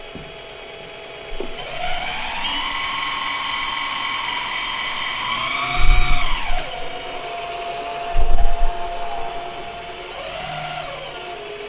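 Electric hydraulic pump and working hydraulics of an RC Liebherr 956 excavator model, its sound module switched off. A steady whine rises in pitch about a second in, holds, and falls away around six seconds, leaving a lower steady hum. Two heavy knocks land near six and eight seconds.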